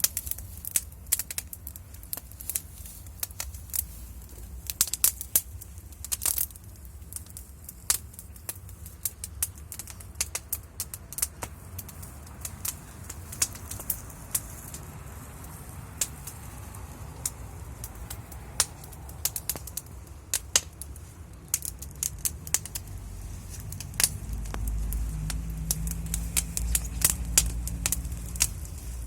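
Wood fire crackling, with irregular sharp pops and snaps throughout. A low rumble underneath grows louder about 24 seconds in.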